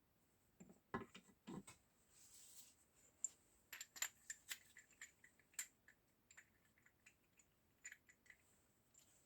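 Small steel gearbox parts of a Zundapp KS 600 clinking and clicking faintly as they are handled and fitted into the gearbox housing: scattered light metal taps with a brief soft scrape about two seconds in.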